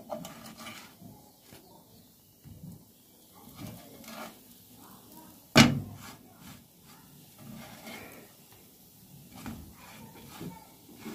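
Scattered knocks and scrapes of a spatula and hands working in a frying pan as harcha semolina cakes are turned, with one sharp, loud knock about five and a half seconds in.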